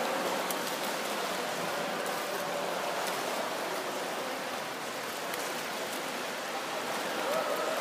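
Steady splashing and rushing water in an indoor swimming pool, from a swimmer doing front crawl.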